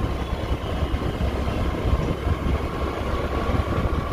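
Steady low rumble of wind buffeting the microphone, mixed with a vehicle running, recorded on the move.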